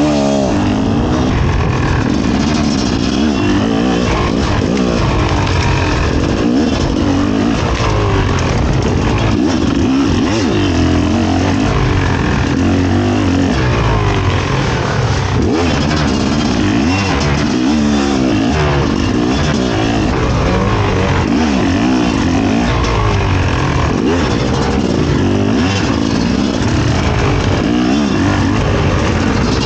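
Fantic XE 300 two-stroke enduro motorcycle engine being ridden hard off-road, its pitch rising and falling over and over as the throttle is opened and closed.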